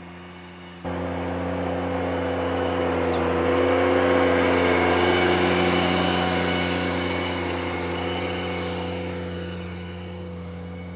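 Ventrac 4500 compact tractor's engine running steadily under load while its power rake churns loose soil and sod. It comes in suddenly about a second in, is loudest around the middle and eases off toward the end.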